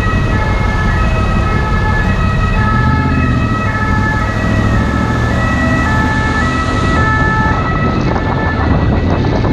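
SAMU ambulance two-tone siren alternating between a high and a low note, fading away near the end. Underneath are the steady low running of a Honda VFR800 motorcycle's V4 engine and wind noise.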